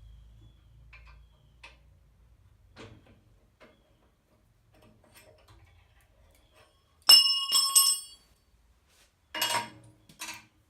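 Metal parts of a Rikon 14-inch bandsaw being handled during a blade change. A few light clicks come first. About seven seconds in there are two sharp metallic clanks that ring briefly, and near the end two duller clanks.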